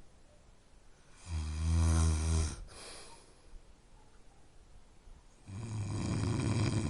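A person snoring: a loud, low, rasping snore about a second in, lasting about a second and a half, then a quieter breath, and another snore starting near the end.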